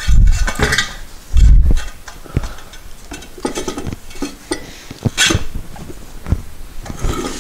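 A motorcycle tire being worked by hand onto a spoked wheel rim: two heavy low thumps in the first two seconds, then scattered knocks, clicks and rubbing scrapes, with one sharper knock about five seconds in.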